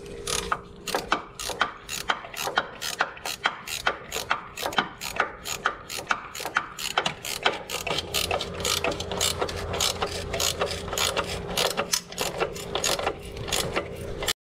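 Ratchet wrench clicking steadily, about three clicks a second, as the nut on a new engine mount is run down.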